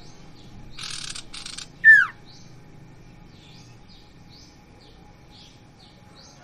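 Caged sirtu (common iora) calling. About a second in there is a harsh two-part hiss, then a loud, sharply falling whistle. After it come soft, high chirps repeated about twice a second.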